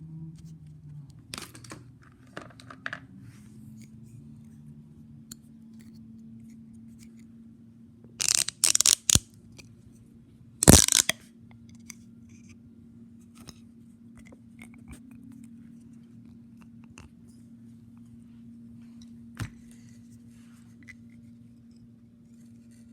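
Fidget toys being handled: scattered light clicks, with a cluster of short, loud bursts of noise about eight seconds in and another about eleven seconds in. A steady low hum runs underneath.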